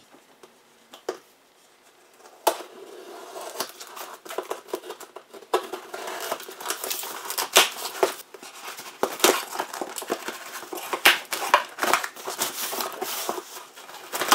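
Utility knife cutting through the packing tape on a cardboard box, with the tape ripping and the cardboard scraping. From about two seconds in comes a continuous run of crackling rips, scrapes and small knocks.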